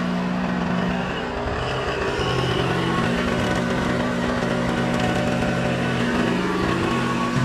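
Kubota compact tractor's diesel engine running steadily while the loader pushes into brush. The engine note dips about a second in, then steadies again.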